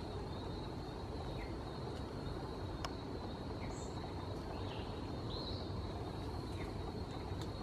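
Forest ambience: a steady high insect drone with short, high bird chirps every second or so over a low background rumble. Two sharp clicks come about three seconds in and near the end.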